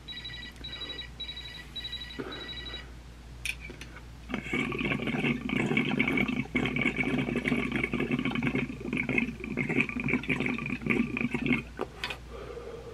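Water bubbling and gurgling through a glass dab rig as someone inhales through it, a continuous bubbling that starts about four seconds in and runs for about seven seconds. Before it, a quick run of high electronic beeps for the first few seconds.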